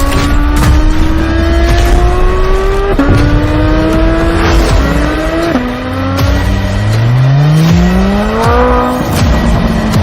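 A vehicle engine accelerating hard through the gears: its pitch climbs, drops at each upshift about three, four and a half and five and a half seconds in, then climbs steeply again to a peak near the end before falling away.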